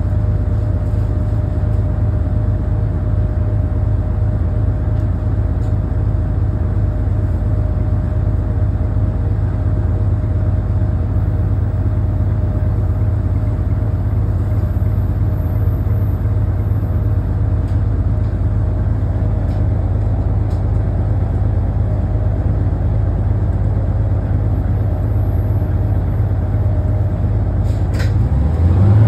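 Steady low rumble inside a 1975 AM General bus standing still, with a faint steady tone above it. Near the end a click, then a rising whine as the bus starts to pull away.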